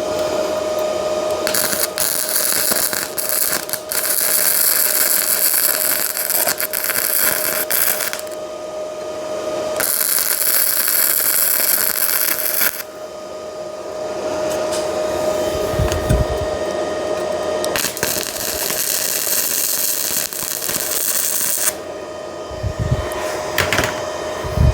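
Flux-core MIG welding arc crackling and hissing in three runs of several seconds each, with short pauses between them and a steady high whine underneath throughout.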